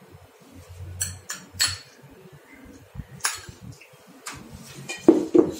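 Metal spoon scraping and tapping against a bowl while chopped cucumber is scooped out onto puffed rice, with a few sharp clinks: two about a second in and one a little past halfway.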